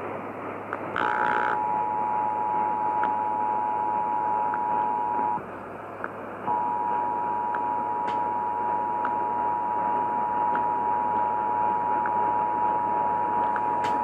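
The Emergency Alert System's two-tone attention signal, a steady pair of close pitches, coming through an AM radio over a bed of static hiss and hum. It starts about a second in with a short burst of noise, drops out for about a second near the middle, then resumes.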